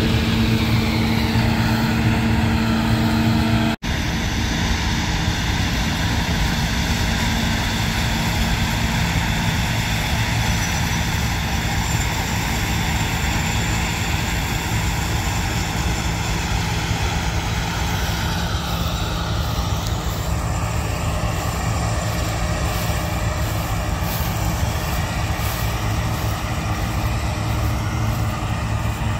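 Claas Lexion 460 combine harvester working through wheat, its engine a steady drone. The sound drops out briefly about four seconds in.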